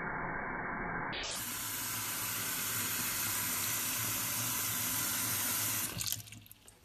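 Kitchen tap running a steady stream into a stainless steel sink, splashing on the drain. The water is shut off about six seconds in.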